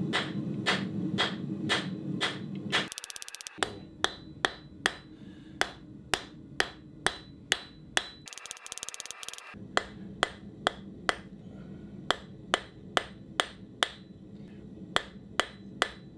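Blacksmith's hammer striking hot steel on an anvil, drawing out a taper, in steady blows about two a second. Twice the rhythm breaks for a quick patter of light, rapid taps.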